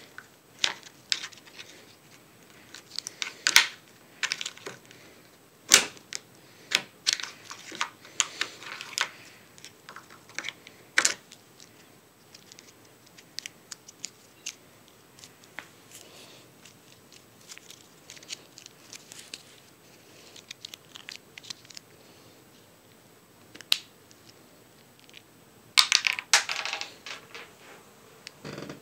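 Small plastic action figure tapped, knocked and scraped against a wooden bed frame: irregular sharp clicks and knocks, busiest in the first dozen seconds, sparse after that, then a quick flurry near the end.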